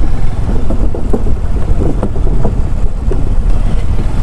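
A 125cc motorcycle riding slowly, its engine a low rumble under wind buffeting the microphone, with irregular light knocks from the loose timber deck boards flexing under the wheels.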